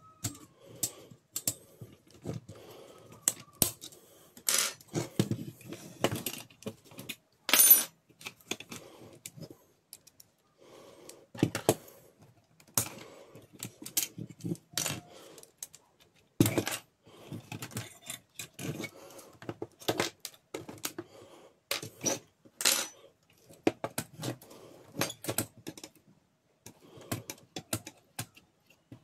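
Metal brackets, springs and plastic parts of a laser-printer fuser unit clicking, clinking and rattling as they are taken apart by hand, in irregular sharp clicks. The loudest, ringing clinks come about five and eight seconds in.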